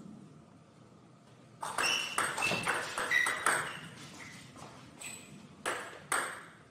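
Table tennis rally: a quick run of sharp clicks and pings as the plastic ball strikes the bats and the table, starting a little under two seconds in and lasting about two seconds. Two louder single knocks of the ball follow near the end.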